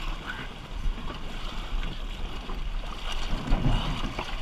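River current rushing and splashing around a swamped canoe as it is rolled back upright in the water, with a heavier low splash about three and a half seconds in.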